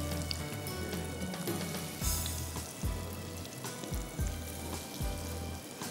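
Oil sizzling steadily in a frying pan, with background music and a few soft low thumps.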